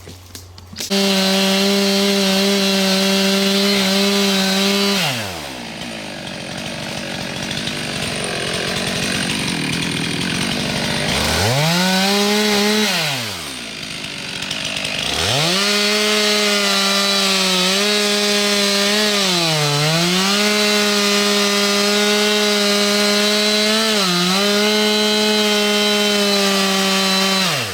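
Gas chainsaw cutting into a tree trunk for a hinge cut. It runs at full throttle from about a second in, drops back around five seconds, revs up and down briefly, then runs at full throttle again with two short dips in pitch as the chain loads in the wood, and is released near the end.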